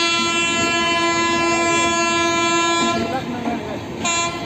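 Train locomotive horn: one long steady blast that stops about three seconds in, then a short second blast about a second later.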